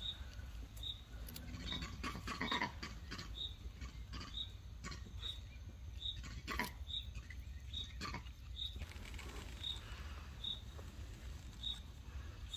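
A short, high chirp from an unseen small animal, repeating evenly about every three-quarters of a second, over quiet outdoor ambience with a few sharp clicks and rustles.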